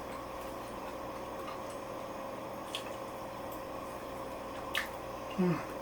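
A person chewing a mouthful of stir-fried broccoli, with a couple of faint clicks over a steady low room hum, and a short hummed "mm" near the end.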